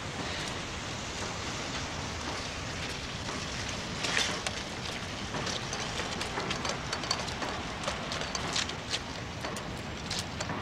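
Steady rain falling, an even hiss, with irregular sharp ticks and splashes from about four seconds in.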